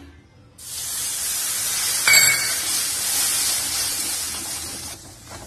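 Water poured into hot ghee, roasted whole-wheat flour and sugar in a steel kadhai, sizzling loudly from about half a second in and dying down near the end, as the atta halwa takes up the water. A steel ladle clinks once against the pan about two seconds in.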